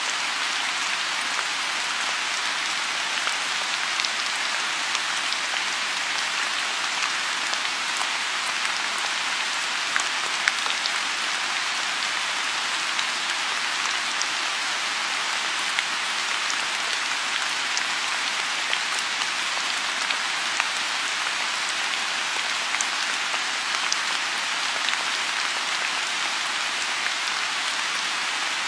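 Steady rain falling on a pond, an even hiss of rainfall with scattered sharp ticks of individual drops landing close by.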